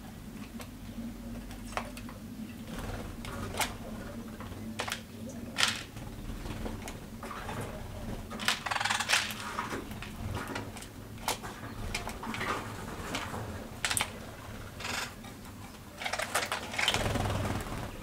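Small seed-eating birds feeding at a plastic-bottle feeder of sorghum seed: scattered sharp taps and clicks of beaks and claws on the hard plastic, with two short rustling flurries, one about halfway and one near the end.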